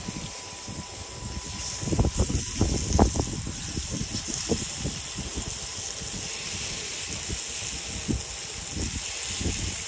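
Raw tuna steaks sizzling on a hot gas grill, a steady hiss, with low bumps and rumbling loudest about two to three seconds in.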